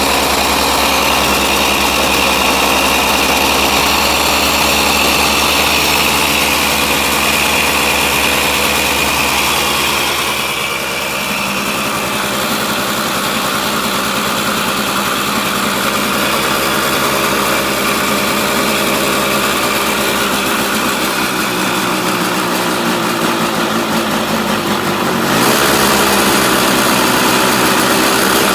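Single-cylinder two-stroke engine of a Yamaha YT125 three-wheeler running on a swapped-in DT175 cylinder, Blaster reed valve and intake. It runs unevenly rather than at a settled idle; its sound changes briefly about ten seconds in and picks up slightly near the end.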